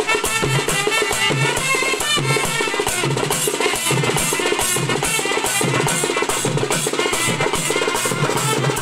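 Papare band playing: trumpets carry a melody over fast, steady hand-drum beats.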